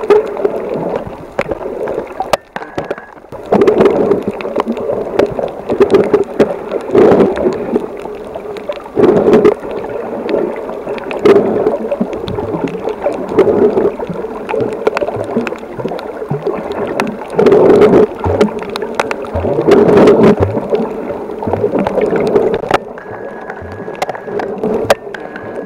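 Muffled water rushing and sloshing around a camera held underwater, coming in uneven surges every second or two, with scattered clicks and knocks.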